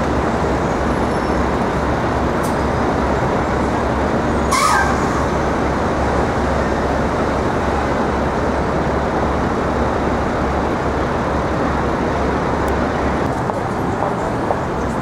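Steady city street traffic noise from passing road vehicles. About four and a half seconds in there is a brief sharp hiss with a short falling squeal.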